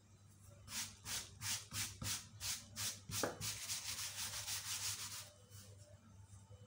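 A hand brushing over a floured sheet of rolled-out doughnut dough: a run of quick strokes, about two a second, then a steady rub for about two seconds.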